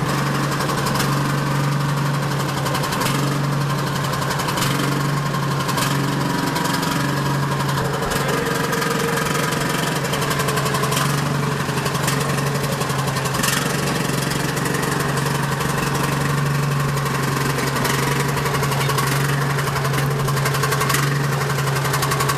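Engine of a vintage machine running steadily at an even speed, with a strong low hum and no revving.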